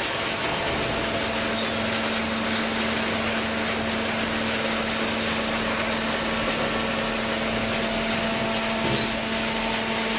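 Vertical hydraulic baler running, a steady machine noise with a constant hum from its hydraulic pump motor that sets in just after the start.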